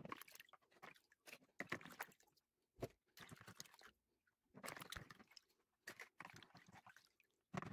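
Faint water splashing and dripping as a plastic Renault Clio air-vent diffuser is swished and rinsed in a basin of clean water, with small clicks and knocks of the plastic.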